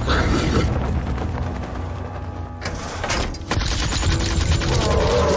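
Rapid automatic fire from a multi-barrel rotary gun: a fast rattle of shots over a low rumble, briefly dropping off about three and a half seconds in before resuming, with background music.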